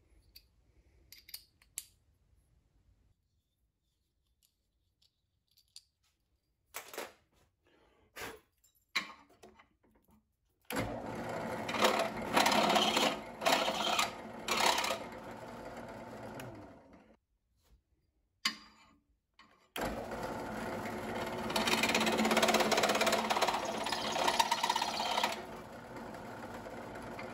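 Benchtop drill press started, running and countersinking the screw holes of an aluminum beater bar, in two runs with louder bursts of cutting in each. The first run starts about eleven seconds in and winds down at about seventeen seconds. The second starts about three seconds later and runs on. A few small handling clicks come before the first run.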